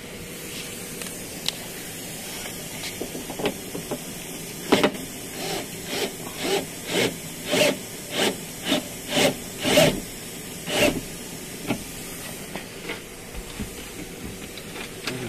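Cordless drill-driver with a socket running in a quick string of about a dozen short bursts, roughly two a second, while unbolting the old window regulator inside the door. A few lighter clicks follow near the end.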